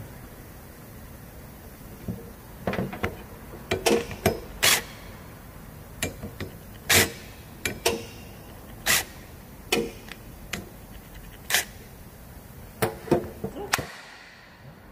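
About twenty sharp metallic clicks and knocks at irregular spacing, starting about two seconds in: hand tools and small parts of a Honda GX35 brush-cutter engine being handled during disassembly.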